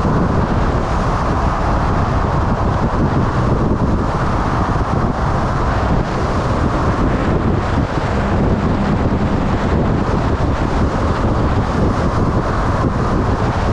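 Motorcycle under way: steady wind rushing over the microphone mixed with engine and road noise.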